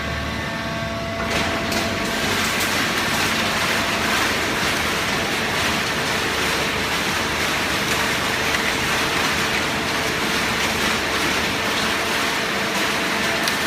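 Hydraulic paper baler running: a steady machine noise with a faint hum, getting louder about a second in.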